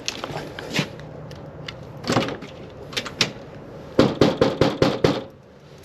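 Footsteps on icy ground, then a quick series of about eight knocks on a house door about four seconds in.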